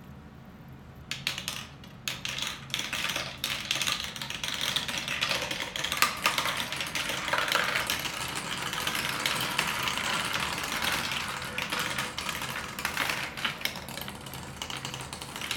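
Marbles rolling and clicking through a Q-Ba-Maze plastic cube marble run. Scattered clicks about a second in build into a continuous rattle of many marbles, which thins to separate clicks near the end.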